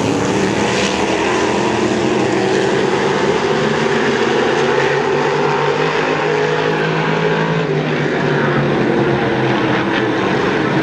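Modified race cars' V8 engines running at speed around an oval track, a loud continuous drone whose pitch drifts slightly as the cars pass.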